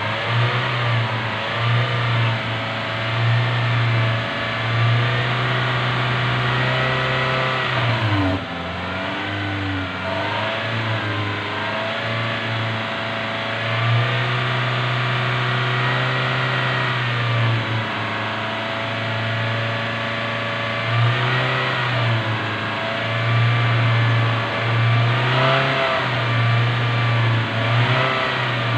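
Toyota Innova engine running and revved up and down repeatedly, while exhaust smoke pours from the tailpipe during a carbon-cleaning (decarbonising) treatment that burns off engine and exhaust carbon.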